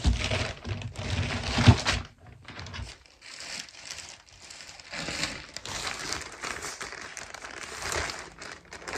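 Packaging crinkling and rustling as items are handled close to the microphone, with heavy bumps in the first two seconds. After a short lull, steady crinkling resumes from about three and a half seconds in.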